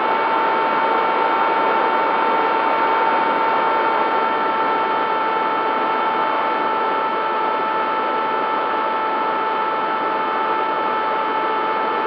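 Bixler 3 model plane's brushless electric motor and propeller running at a steady throttle: a constant whine over wind rush, picked up by the camera on board the plane.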